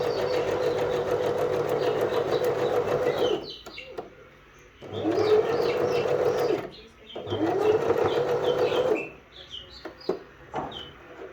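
Elna eXplore 340 sewing machine stitching in three runs, about three and a half, two and one and a half seconds long, its motor whine rising as it speeds up at the start of each run. A few sharp clicks come near the end.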